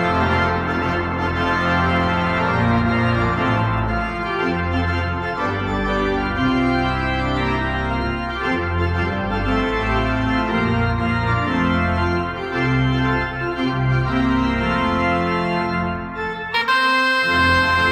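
Organ playing a hymn variation in full, held chords over deep sustained bass notes. Near the end the sound breaks off briefly and comes back brighter and higher.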